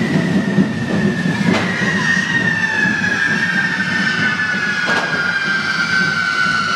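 Correfoc fireworks spraying sparks: a continuous hissing rush with a high whistle that slowly falls in pitch, and a couple of sharp bangs, about a second and a half in and again near five seconds.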